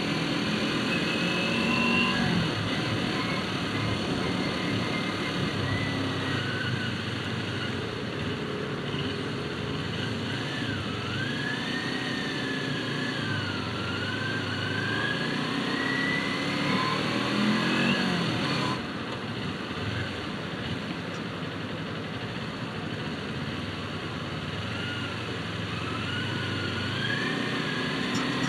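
Sport motorcycle engine heard from the rider's seat, its pitch rising and falling as the throttle is opened and eased in stop-and-go riding, over a steady rush of wind. About two-thirds of the way through, the upper part of the sound drops away abruptly.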